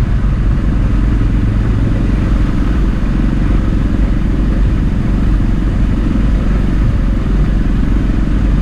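Side-by-side utility vehicle's engine running steadily as it drives across a field with a spray rig, a low, even rumble that holds level throughout.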